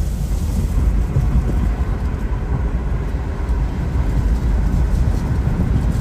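A car driving along a road: a steady low rumble of tyre and engine noise.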